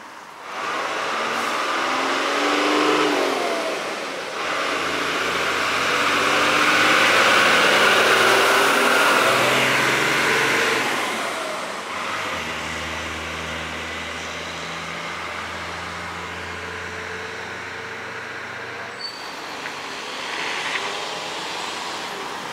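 Emergency vehicles driving past one after another, their engine and tyre noise swelling and fading. A truck's low engine drone runs through the middle stretch.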